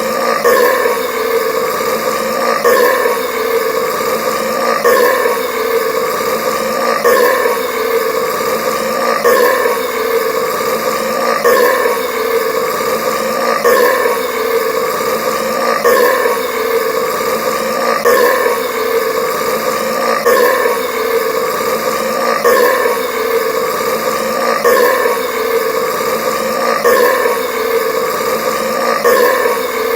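A man's long, deep burp from drinking carbonated soda, looped so the same stretch repeats without a break about every two seconds.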